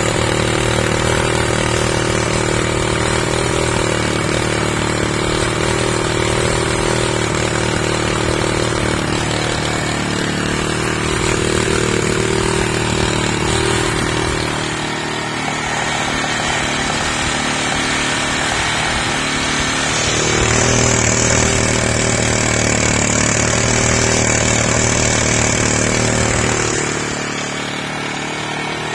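Small petrol engine running on a GEET fuel-processor rig, a steady engine note that dips briefly about halfway and drops again near the end, with a high hiss added for several seconds late on.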